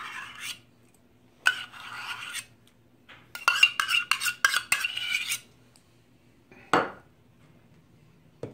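Stainless steel measuring cup knocking and scraping against a stainless steel mixing bowl as mayonnaise is emptied out, the metal ringing after the taps; a fast run of taps comes in the middle. A single dull thump about seven seconds in.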